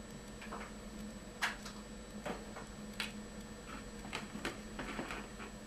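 Latex modelling balloon squeaking and creaking as it is handled and drawn on with a felt-tip marker: a scattered series of short, sharp squeaks and ticks.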